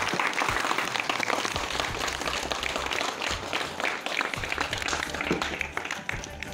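An audience of students clapping: steady, dense applause.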